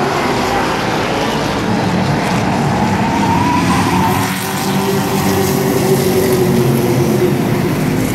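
Engines of a pack of short-track racing trucks running together on the oval, several engine notes at once, with one rising about three seconds in as the trucks come past.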